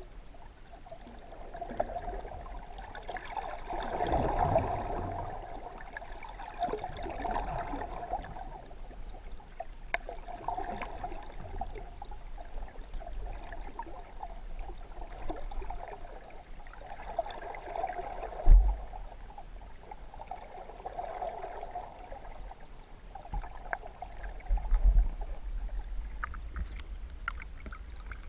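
Muffled water sloshing and gurgling around a camera held underwater, swelling and fading every few seconds. A sharp low thump comes about two-thirds of the way in, and a softer bump a few seconds later.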